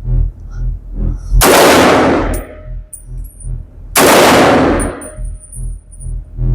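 Two single shots from an AK rifle, about two and a half seconds apart, each followed by a long ringing echo and faint metallic clinks.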